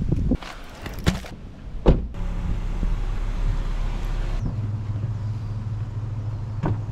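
A car door shuts with a few knocks, then about two seconds in the car's engine starts and runs steadily. A little after four seconds the sound settles into a steady low hum.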